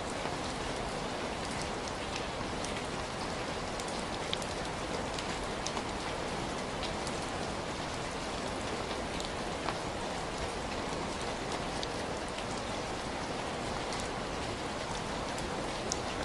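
Heavy rain falling steadily, a dense even hiss with scattered individual drops ticking through it.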